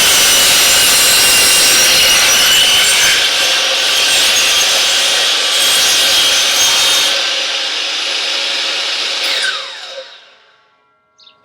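Electric miter saw running and cutting through wood. Near the end the motor is switched off and the blade winds down with a falling whine.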